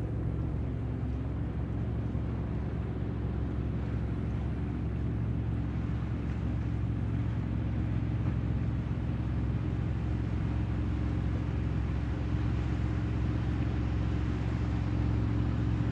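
Steady low hum of a bass boat's bow-mounted electric trolling motor running, holding the boat in position.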